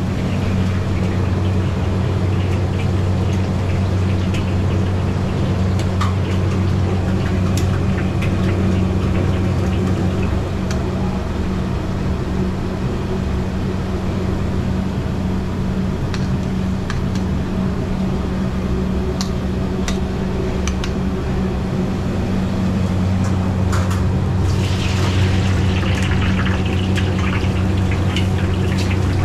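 Commercial kitchen sound: a steady low machine hum with scattered clicks and knocks of utensils. Near the end, oil sizzles as pieces of stuffed tofu and vegetables are deep-fried in a wok.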